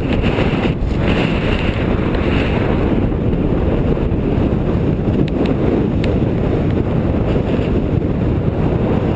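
Strong gusting wind buffeting the camera microphone: a loud, steady low rumble.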